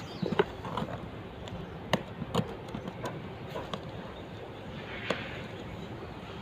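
A cardboard shipping box handled and turned over on a wooden bench: a few sharp knocks and taps, and a short scrape of cardboard about five seconds in, over a steady background hum.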